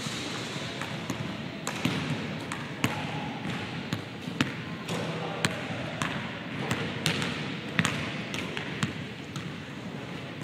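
Basketballs bouncing on a hardwood gym floor: a dozen or so sharp, irregularly spaced bounces over a steady background hiss.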